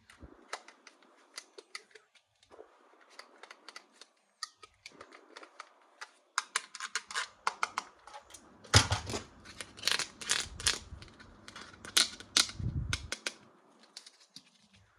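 Rapid clicks and crackles of plastic toy packaging being handled and opened, with heavier bumps of handling in the second half, where it is loudest.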